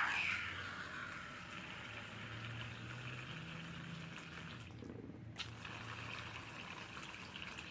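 Water squirted from a plastic squeeze bottle into a small plastic water dish: a stream at first that fades within the first second to a faint steady trickle, with a single click about five seconds in.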